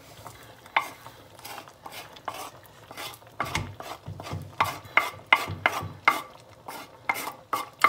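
A wooden spoon scraping and knocking chopped parsley and garlic off a wooden cutting board into a pot: a string of irregular short dry knocks and scrapes, a few a second.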